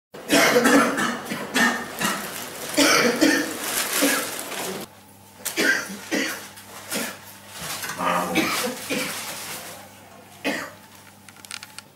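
A man coughing again and again in fits of several coughs, played as the cough of a patient with advanced tuberculosis.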